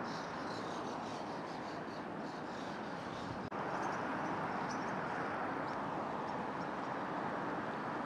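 Flock of white-cheeked starlings calling, many short high chirps scattered over a steady background roar; a sharp click about three and a half seconds in, after which the background is a little louder.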